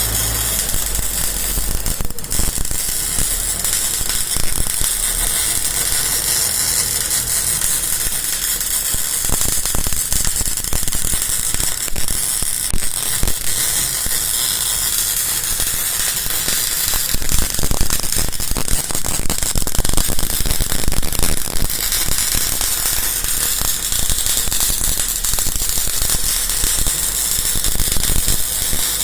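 Bore welder's MIG arc crackling steadily with dense, irregular sharp pops, laying weld inside a bore.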